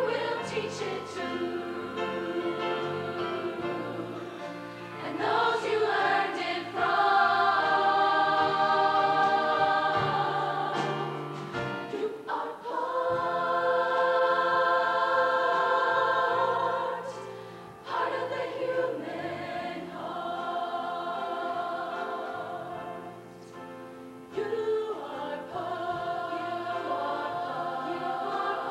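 Show choir singing in harmony, moving between shorter phrases and long held chords that swell to the loudest points of the passage.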